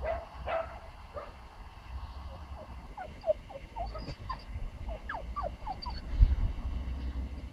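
A pomsky puppy yipping and barking in quick, short calls, with wind rumbling on the microphone.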